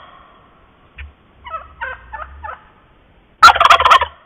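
Wild turkey gobbling: a loud, rapid rattling gobble near the end, with a short run of about five softer separate calls in the middle.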